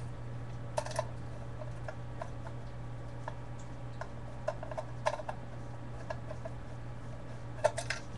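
Scattered light clicks and taps of small metal parts as a screw is worked out of a paintball magazine's aluminum adapter, the loudest near one second, around five seconds and near the end, over a steady low hum.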